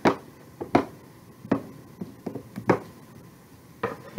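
Small Tim Holtz ink pad tapped repeatedly against a clear rubber stamp on its acrylic block to ink it: about ten sharp, irregular taps, several in quick succession around the middle.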